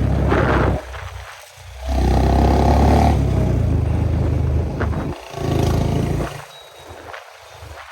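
Royal Enfield Classic 350's single-cylinder engine and exhaust, the throttle opened and closed so the note swells loud and then falls away about a second in, and again after five seconds.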